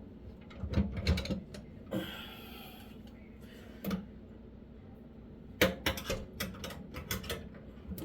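Scattered clicks and light knocks of hard parts being handled and fitted, with a short scrape about two seconds in, during garbage disposal installation work at the sink drain.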